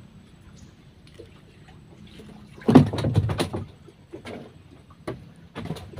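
Knocks and clatter of gear being handled against a small boat's floor and hull: a loud tangle of thumps about halfway through, then a few lighter knocks. A faint steady low hum runs underneath until the thumps begin.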